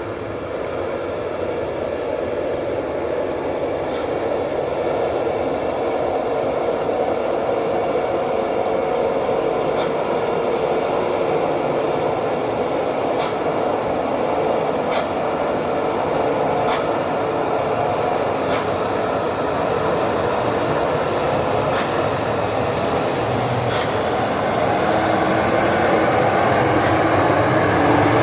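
Heavy dump truck engine running under load, a steady drone that grows gradually louder as the truck approaches, with several short sharp clicks over the second half.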